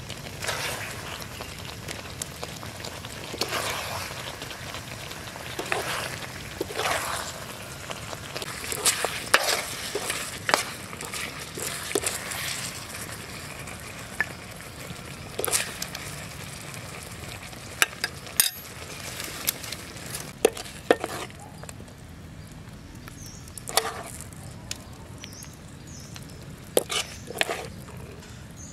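A meat-and-vegetable stir-fry sizzling in a wok, with a metal ladle repeatedly scraping the wok and clinking as the food is scooped out; the scrapes come thickest in the first half, then thin to occasional sharp clinks.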